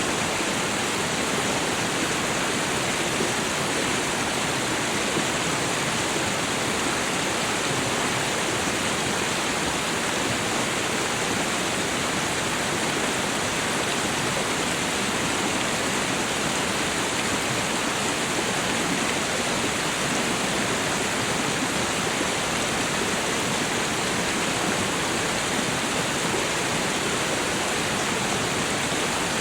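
Waterfall: a steady, even rush of falling water that never changes or breaks.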